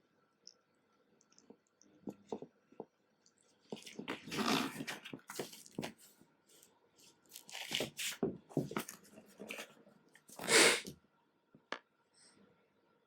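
Mini rabbit chewing and tearing at its food in irregular crunchy bouts, with the loudest short noisy burst about ten and a half seconds in.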